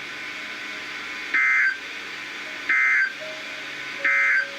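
Emergency Alert System end-of-message data signal from a NOAA Weather Radio broadcast: three identical short, shrill digital bursts, each about a third of a second long and about 1.4 s apart, over steady radio hiss. They mark the end of the tornado warning message.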